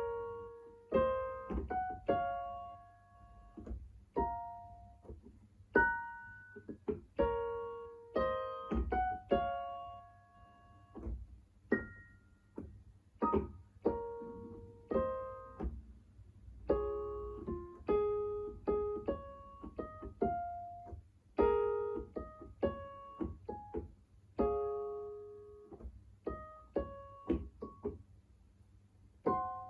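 Electronic keyboard played slowly and haltingly by a first-day beginner, picking out a melody note by note with occasional small chords. Each note is struck and left to fade, with uneven pauses between phrases.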